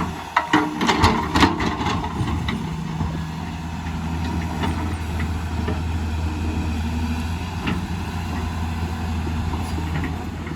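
Excavator's diesel engine running steadily, with a burst of sharp knocks and clanks in the first couple of seconds and a few single knocks later.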